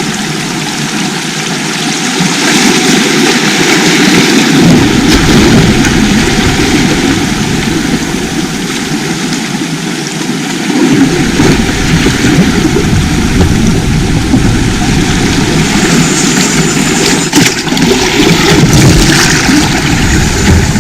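Sea surf washing on the shore, a loud steady rush of water that swells and eases.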